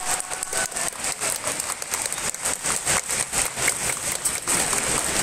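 Spectators clapping in a gymnasium after a point is awarded in a kendo match. The scattered hand claps thin out about four and a half seconds in.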